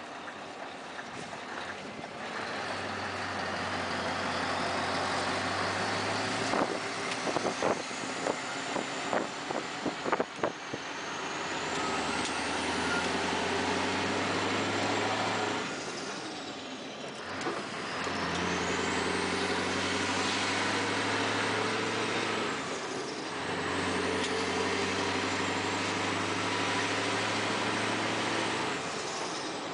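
Scania R560's V8 diesel engine with a straight-pipe exhaust, heard from inside the cab while the truck drives. It pulls steadily in several stretches, with brief drops between them as it changes gear. A few sharp knocks come about seven to ten seconds in, and a faint high whistle rises and falls over the engine.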